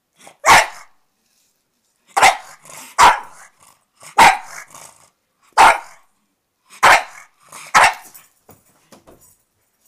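Pug barking in seven sharp single barks, about a second apart, several trailing off in a short grumble.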